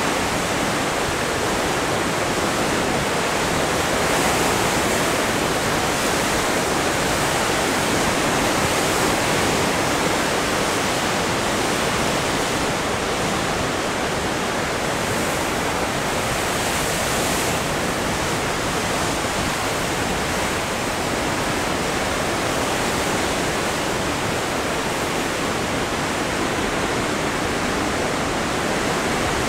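Heavy Pacific surf breaking over a rocky shore: a continuous rush of white water, swelling slightly a few times, with no single wave crash standing out.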